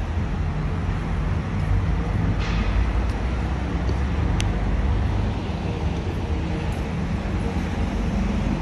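Street traffic: a steady rumble of cars driving along a city boulevard, with a short sharp click about four and a half seconds in.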